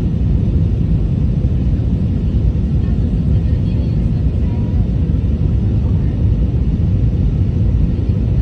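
Steady in-flight cabin noise inside an Airbus A320: a low, even rumble of the jet engines and the airflow over the fuselage, with a faint steady hum above it.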